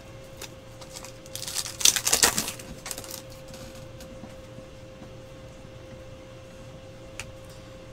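Trading cards being handled: a burst of crinkly rustling about one and a half to two and a half seconds in, then a few light clicks, over a faint steady hum.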